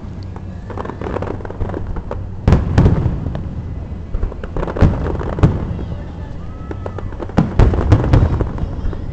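Fireworks display: aerial shells going off in a series of sharp bangs, coming in clusters a couple of seconds apart.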